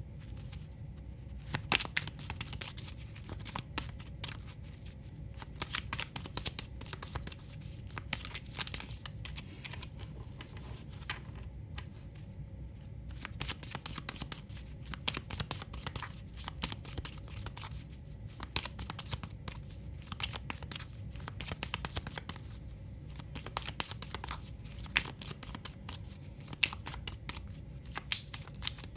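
A deck of cartomancy cards being shuffled by hand: a long run of crisp, irregular clicks and snaps, some louder than others, over a low room hum.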